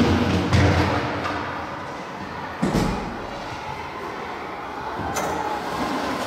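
Hollow knocks of a large plastic barrel being pushed about on a concrete floor by a giant panda: several knocks in the first second, then a heavy thump a little under three seconds in as the barrel falls onto its side, and a lighter knock near the end.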